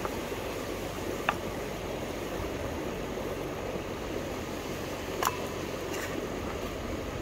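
Steady rush of a flowing river, with a few short sharp clicks: one about a second in, and a couple more around five to six seconds in.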